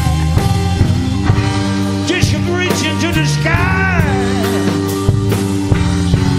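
Blues-rock band music: steady bass and drum beat under a lead line that bends and wavers in pitch in the middle.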